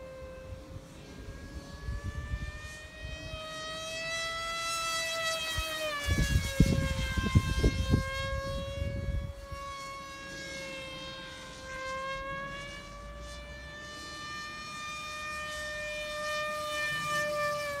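Emax brushless motor and propeller on a radio-controlled FPV plane in flight, a steady high whine that rises and falls gently in pitch with throttle and distance. A low rumble of wind on the microphone swells over the middle seconds, the loudest part.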